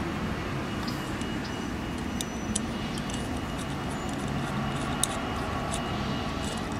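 Scattered small, sharp metallic clicks and ticks as a main jet is worked in and out of an outboard carburetor body by hand and screwdriver, over a steady outdoor background hum.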